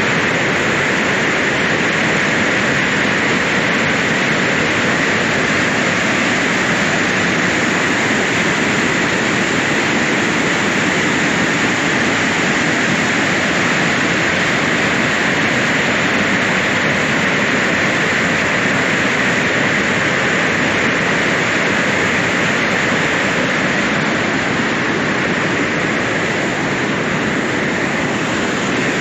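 Water spilling over a check dam in monsoon flow: a loud, steady rush of falling water.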